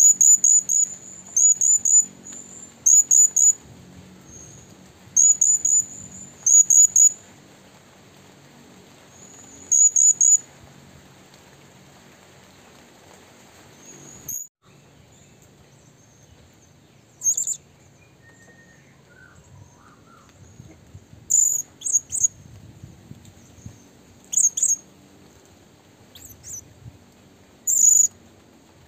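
Bird chirping: short, high chirps in quick clusters of two to four, repeated every second or two, then thinning out to single chirps and pairs after about fourteen seconds, over a faint steady high hum.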